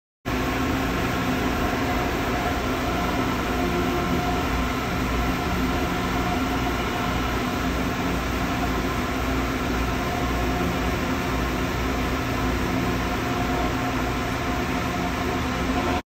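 Steady running noise of a powered emery-belt tool polishing a marine diesel's crosshead pin with 120-grit emery paper, carrying several steady hum tones, over engine-room machinery.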